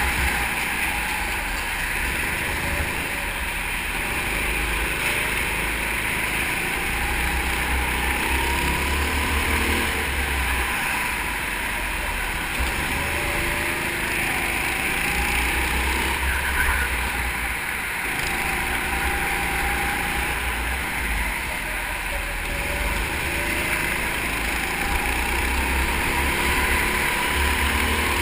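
Go-kart heard from on board while lapping at speed: its motor note rises and falls through the corners over a steady rushing noise and low rumble.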